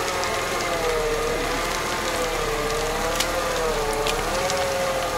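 Lada Niva 4x4 working through deep mud, its engine and drivetrain giving a strained whining tone whose pitch slowly wavers up and down as the car struggles for grip. A couple of sharp clicks stand out partway through.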